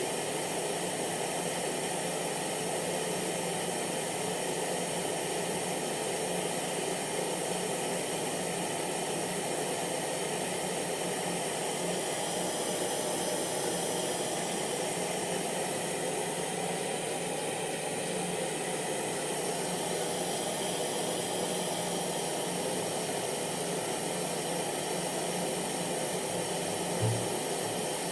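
Hair dryer running steadily: a continuous rush of air over an even motor hum, with one brief low bump near the end.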